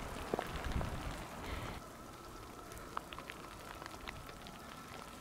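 Faint rain at the tail end of a thunderstorm, with scattered drops ticking.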